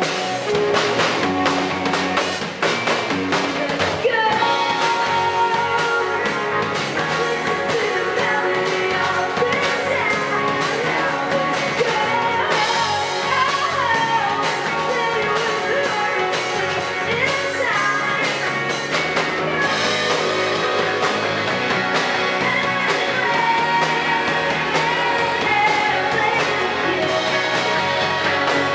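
Live rock band playing: electric guitars, bass guitar and a drum kit, with a female lead vocal coming in about four seconds in and singing over the band.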